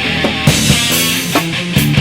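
A rock band playing live at full volume, with sustained instruments and drum hits several times through the two seconds.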